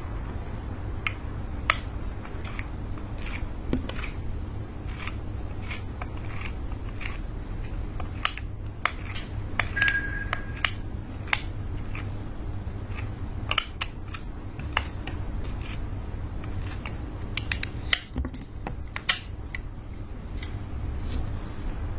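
Metal scraper and knife chopping lipstick into clear slime on an acrylic board: scattered sharp clicks and crunches, irregular, over a steady low hum.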